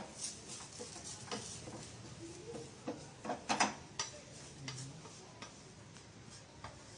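Wooden spatula stirring and scraping a dry-roasting ground-peanut mixture in a stainless steel pan, giving irregular clicks and taps. The loudest cluster of knocks comes about three and a half seconds in.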